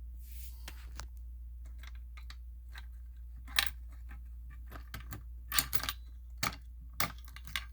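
A handful of sharp clicks and taps from a fire alarm pull station being handled, starting about three and a half seconds in, over a steady low hum.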